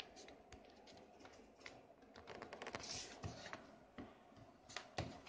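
Faint, scattered clicks and scratching from a smartphone and its USB cable being handled, with a couple of slightly louder knocks about three and five seconds in.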